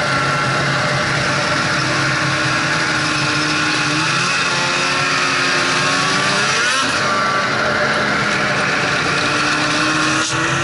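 Snowmobile engine running while under way, over steady track and wind noise. The engine pitch climbs between about four and seven seconds in, drops, and climbs again near the end.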